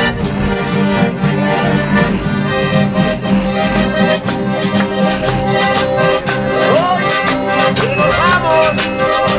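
Accordion playing a tune with a steady beat.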